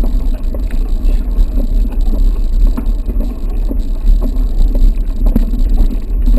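Wind buffeting a helmet- or bike-mounted action camera's microphone, with an uneven clatter of a mountain bike's frame and parts rattling over a rough trail.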